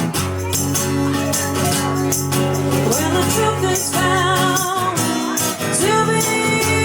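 A song performed with a band and a lead singer, the voice coming in with a strong vibrato about three seconds in over a steady low instrumental backing.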